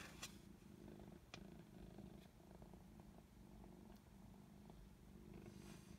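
Near silence: a faint, steady low rumble, with a soft click at the start and another about a second and a half in.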